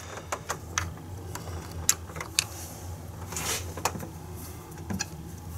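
Hands handling a variable valve timing solenoid and its plastic wiring connector on top of the engine: scattered small clicks and taps, with a brief rustle about three and a half seconds in, over a steady low hum.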